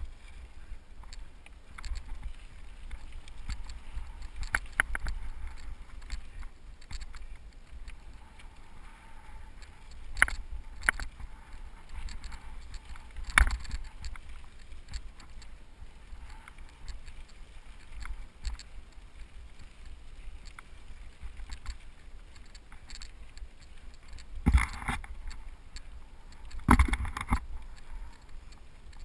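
A cyclocross bike riding fast on a dry dirt singletrack: wind rumbling steadily on the helmet camera's microphone, with the bike rattling and knocking over bumps. The hardest jolts come about halfway through and twice near the end.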